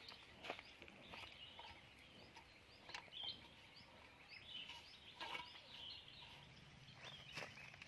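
Faint birds chirping, many short high chirps, with a few soft clicks and knocks; a low steady hum comes in near the end.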